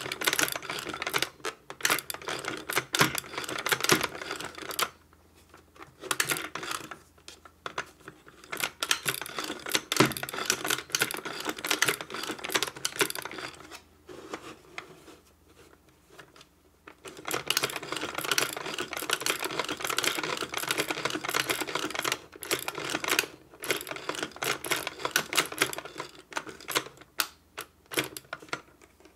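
Hand-cranked plastic Lovely Lamb toy sewing machine clattering as it stitches through fabric. It comes in several runs of rapid clicking, with pauses of a second or three between them.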